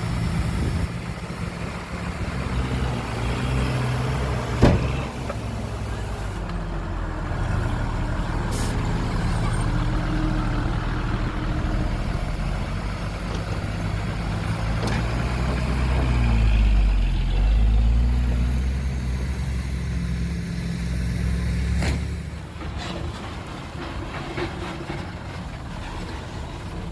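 Diesel engines of a bulldozer and dump trucks working steadily, the engine note sinking and rising again over a few seconds midway as it grows loudest, with one sharp knock about five seconds in.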